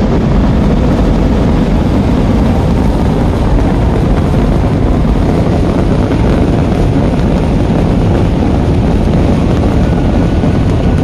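Vedikkettu fireworks barrage, the explosions so rapid and dense that they merge into one steady, loud rumble with no let-up.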